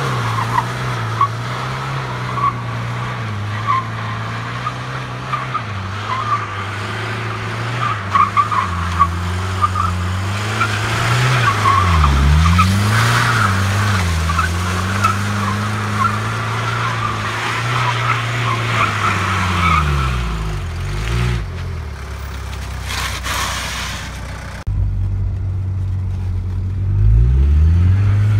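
Mercedes 240D diesel engine revving up and down while the car slides sideways, with tyre skidding noise; the engine pitch drops and climbs several times, and near the end the sound changes abruptly and the revs climb again.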